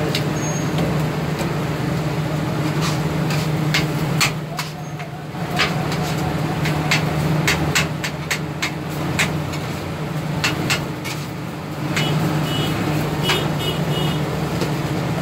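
Metal spatula knocking and scraping on a flat-top griddle as chopped meat is worked, in irregular sharp clacks, over a steady low hum.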